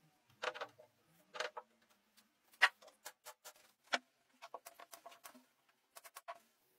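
Irregular sharp clicks and taps from hands working webbing straps on a wooden chair frame, the loudest about two and a half seconds in, with a quick run of lighter clicks a little later.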